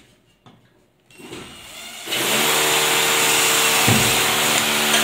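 Near silence, then about two seconds in a steady motor whir with a low hum starts and keeps running.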